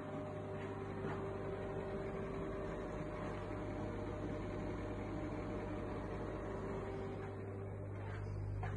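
A steady mechanical hum with a faint whining tone over it, like a fan or small motor running.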